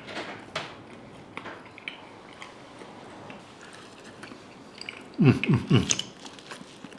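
A person chewing a mouthful of fried potatoes, with small wet mouth clicks. About five seconds in comes a short, louder burst of low voice sounds.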